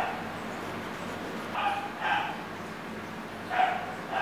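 Baby macaque giving short, high-pitched squealing calls, several times, mostly in pairs about half a second apart.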